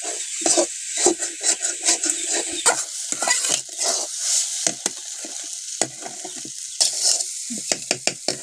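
Metal spatula scraping and knocking against a metal kadhai in quick, irregular strokes as scrambled egg is stirred and broken up, over a steady sizzle of frying.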